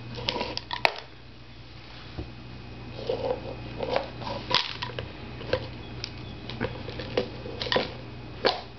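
A cat pawing at a can holding a treat: a scattered string of light clicks and taps, about a dozen spread irregularly through.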